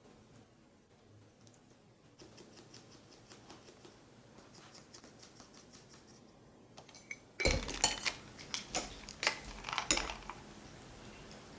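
Dishes and cutlery clinking and clattering: faint light ticking at first, then a louder run of sharp clinks and knocks from about seven and a half seconds in.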